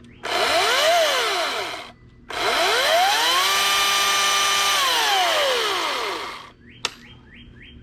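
40-volt brushless electric chainsaw with a freshly fitted chain run free, not cutting: a short trigger pull whose whine rises and falls, then a longer one that spins up, holds steady for about two seconds and winds down. It is a test run of the new chain.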